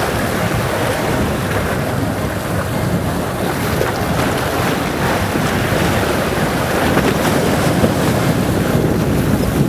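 Steady wind noise on the microphone, with sea water at the shore underneath.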